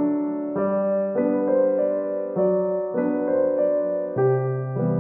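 Background instrumental music: held keyboard chords that change roughly every half second.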